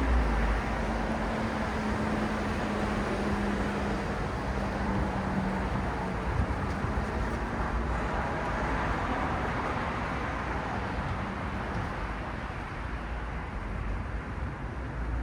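Steady city road traffic: a continuous wash of tyre and engine noise from passing cars. Over the first several seconds one vehicle's engine hum stands out and drifts slightly lower in pitch before fading into the rest.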